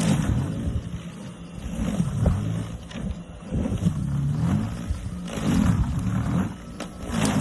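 MasterCraft 2x20V brushless cordless snow blower running, its electric motor hum dipping and rising in pitch again and again as it loads and unloads, with swells of noise every second or two.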